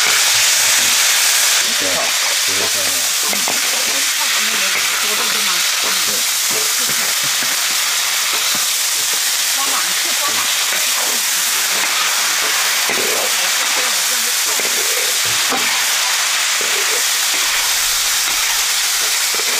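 Cured pork, dried red chillies and oyster mushrooms sizzling hard in a large wok as a metal spatula stirs them. A steady frying hiss that eases slightly about two seconds in.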